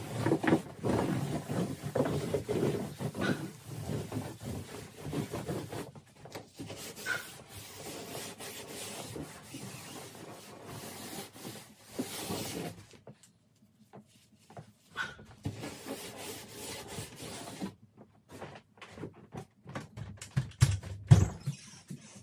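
Hands and knees rubbing and scraping on the floor of a plastic kiddie pool, with a few short squeaks. Near the end come several knocks and one loud thump, as footsteps cross the floor.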